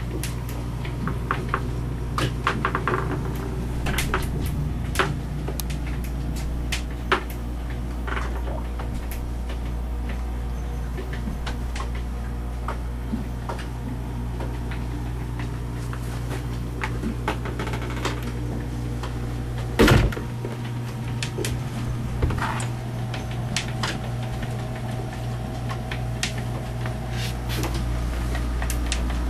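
Steady low hum, with scattered light clicks and knocks and one loud thump about twenty seconds in.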